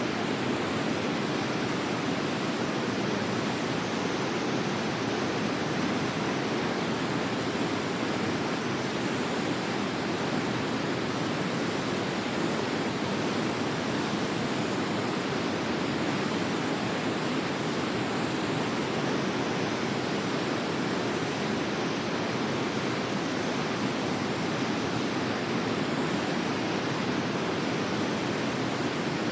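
Waterfall: a steady, unbroken rush of falling water, fullest in its lower tones.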